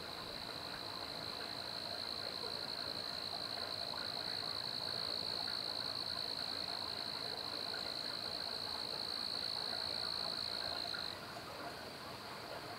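A calling animal's long, steady, high-pitched trill, held unbroken for about eleven seconds and then cutting off suddenly.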